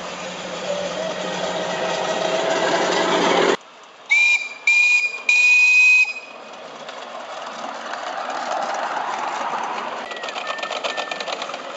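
Miniature live-steam locomotive's whistle blown three times, two short blasts and a longer one, steady and high-pitched. Before it, a ride-on miniature locomotive running along the track grows louder as it approaches, and after it the train's running noise carries on.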